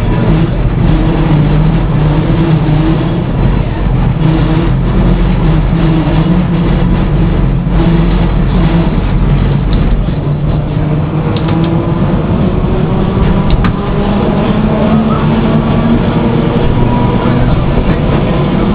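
Lisbon tram no. 730 running along the track, heard from inside its cab: a steady loud rumble from the tram and its wheels on the rails, with scattered clicks and rattles. In the second half a whine rises in pitch.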